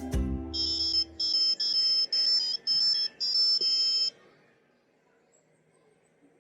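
Micro:bit alarm playing a short run of about five high-pitched electronic beep tones over roughly three and a half seconds, then stopping: the school-bell signal that a lesson period has ended.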